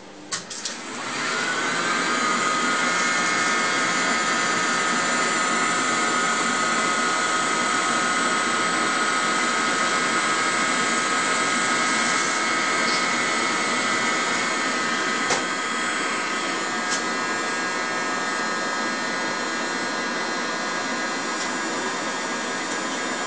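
Sony BVH-3100 one-inch Type C video tape recorder starting up: two or three clicks, then a whine that rises for about a second and a half and settles into a steady high whine over a rushing hum as its head drum comes up to speed and runs. A single sharp click about fifteen seconds in.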